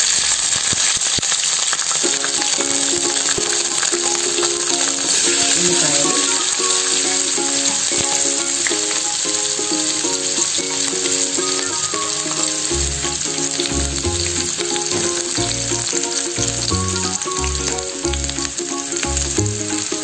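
Green chillies and sliced onions sizzling in hot oil with mustard and cumin seeds in an aluminium pan; the sizzle grows louder about five seconds in. Background music with a melody plays over it, and a bass line comes in about halfway through.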